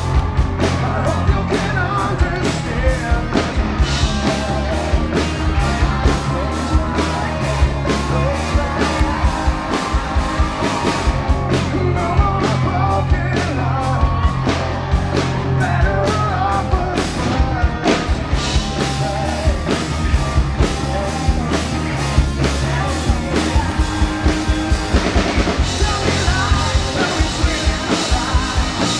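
Live rock band playing: a male lead singer over electric guitars and a drum kit beating a steady rhythm.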